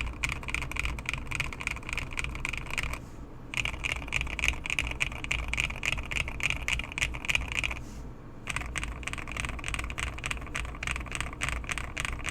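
Mechanical keyboard with Akko Radiant Red linear switches being typed on fast: a dense clatter of keystrokes in three runs, with short breaks about three and eight seconds in.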